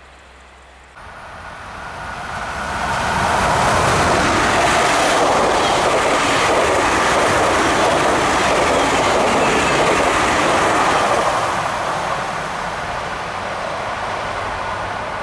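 Two coupled ES1P Lastochka (Siemens Desiro RUS) electric trains passing at speed. The noise builds over about two seconds, stays loud for about eight seconds, then fades as the train goes by.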